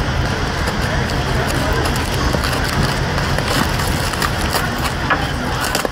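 A cardboard box being torn open by hand: tape ripping and cardboard crackling in many small sharp clicks, over a steady low background rumble.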